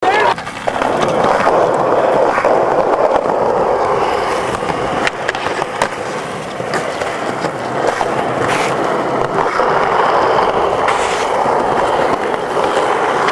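Skateboard wheels rolling steadily over rough concrete, with a scatter of sharp clacks as the board's deck and tail hit the ground.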